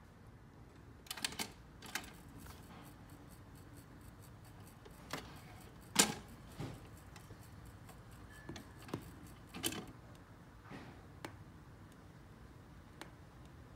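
Magnavox Micromatic record changer cycling: a scattered series of light mechanical clicks and clunks from the changer mechanism, the loudest about six seconds in, as a record drops from the spindle onto the platter.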